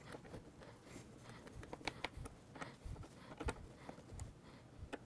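Faint, scattered clicks and light handling noise of an antenna being screwed into its mount by hand and a small combination wrench being fitted onto its base.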